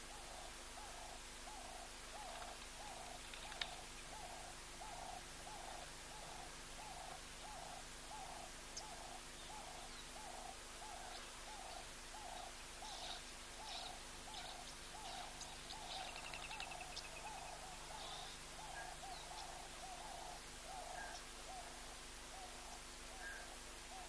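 A bird giving a low hooting note over and over, about two a second at an even pace. Fainter, higher chirps from other birds come in around the middle, including one short trill.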